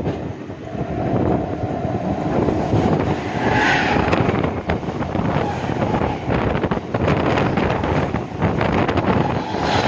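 Wind buffeting the microphone at the open door of a moving Mumbai suburban electric local train, over the steady running noise and irregular clatter of its wheels on the rails, as another local train passes close alongside on the next track.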